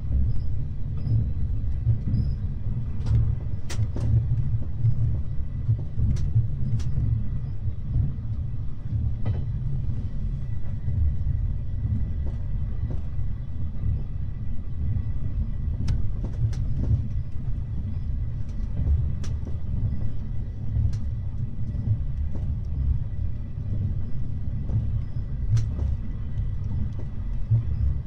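Running noise heard inside a sleeping-car compartment of passenger coach OHANE 25 522: a steady low rumble from the train rolling on its TR217 bogies, with scattered sharp clicks at irregular intervals. The compartment sits at the end of the car, over a bogie, so the bogie noise comes through strongly.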